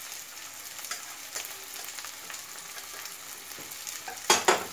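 Sesame-crusted tuna steak sizzling steadily in a skillet, with light scraping as brown rice is stirred into a pot of peas. Near the end come two loud, sharp metal clanks of cookware in quick succession.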